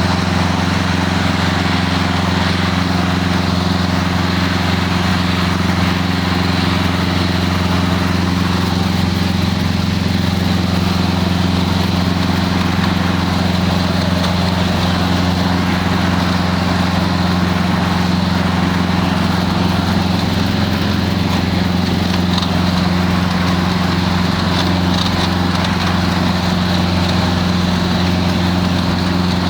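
Light aircraft piston engine running at steady revs, a constant low drone with no change in pitch.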